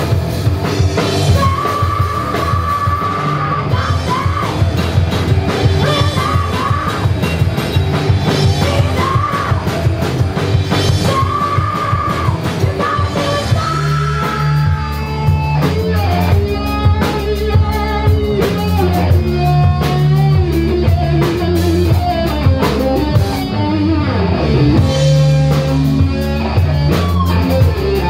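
Live rock band playing loud: electric guitar, bass guitar and drum kit together, shifting into a new section about halfway through.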